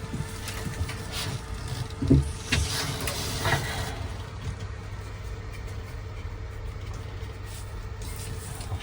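Low steady background hum with a couple of faint brief handling sounds about two and three and a half seconds in.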